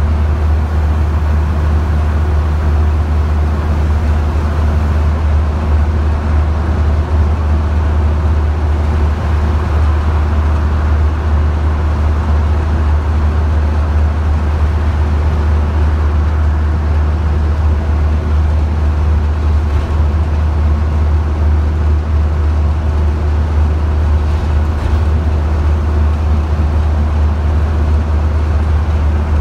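Bus engine driven hard at a steady cruising speed, a loud even low drone heard from inside the saloon, with road and tyre noise over it.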